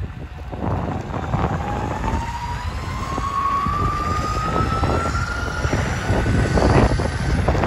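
Electric skateboard motor whining, its pitch rising slowly and steadily as the board speeds up, over wind rumbling on the microphone.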